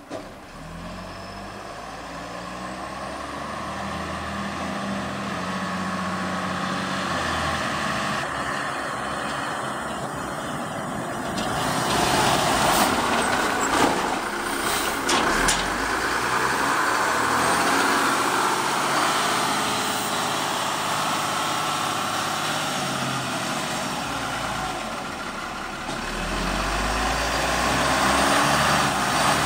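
1990 M931A2 military tractor truck's Cummins 6CTA8.3 diesel engine running as the truck drives, its pitch stepping up and down with changes in speed and gear. The sound grows louder as the truck passes close by about halfway through, with a few short sharp sounds there, and swells again near the end as it comes back toward the listener.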